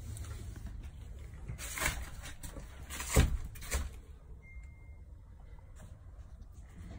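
A low steady rumble with three short scuffing rustles, about two seconds in, just after three seconds (the loudest) and just before four seconds: someone moving among cardboard firework cases with a handheld phone. It is quieter after that.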